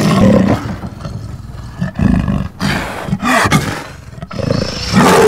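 Leopard giving a run of short, low growling roars, several calls in a few seconds with brief pauses between them.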